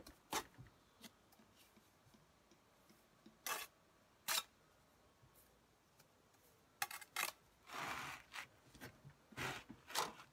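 Bricklayer's trowel working on mortar and brick: a scattering of short scrapes and taps, with one longer scrape about three-quarters of the way through.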